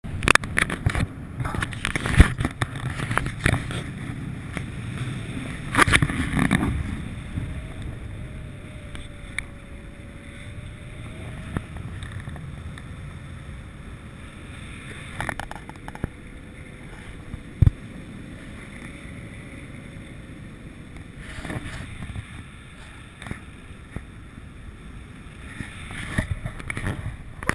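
Rushing air buffeting the camera's microphone during paraglider flight: an uneven, gusty rumble with a few sharp knocks.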